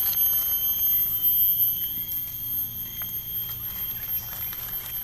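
A steady, high-pitched chorus of forest insects, with a few faint ticks and scrapes as a small knife cleans the stems of freshly picked mushrooms.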